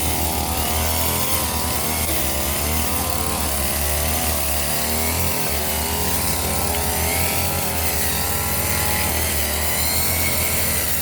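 Two-stroke brush cutter engine running hard while cutting undergrowth, its pitch repeatedly rising and falling.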